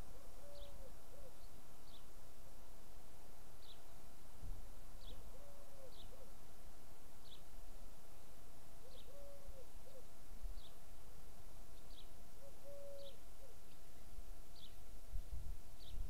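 A dove cooing: a low phrase of one long note and a short one, repeated about every four seconds. A small bird gives a single high chirp about once a second, and there is a low rumble near the end.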